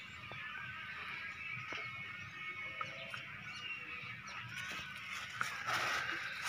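Faint background of birds calling, with a plastic bag crinkling near the end as it is handled.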